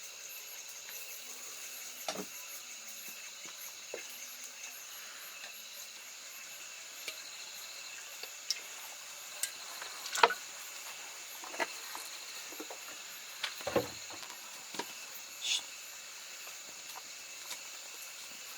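Steady high chirring of insects, with scattered sharp clicks and knocks, the loudest about ten seconds in.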